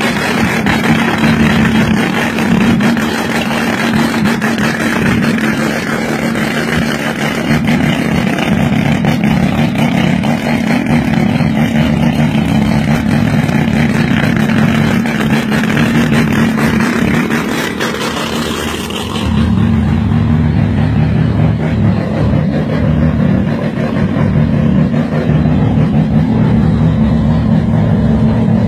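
Turbocharged drag car's engine running steadily. About two-thirds of the way through it abruptly turns duller and deeper.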